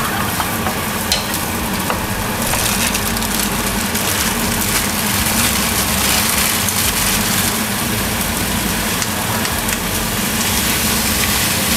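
Minced meat and sliced onions sizzling as they fry in a pan, the sizzle growing louder a couple of seconds in, over a steady low hum.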